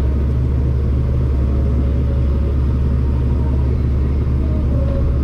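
Combine harvester running steadily under harvest load: a continuous low drone with no change in pitch or level.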